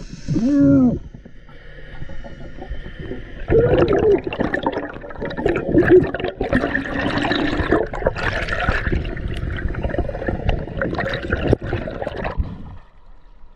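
Air bubbles gurgling and churning underwater, heard through a submerged camera. Quieter at first, louder from about three and a half seconds in, and dropping away shortly before the end.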